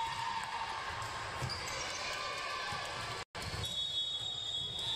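Gymnasium noise during a volleyball match: the ball thudding in play over the steady murmur of the hall and crowd. The sound cuts out for an instant about three seconds in.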